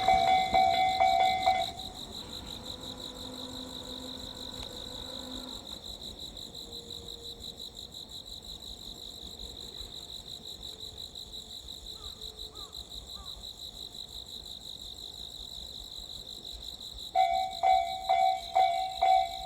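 Insects trilling steadily in a high, fast-pulsing chorus. A level-crossing warning bell rings with repeated strikes, stops about two seconds in, and starts ringing again near the end.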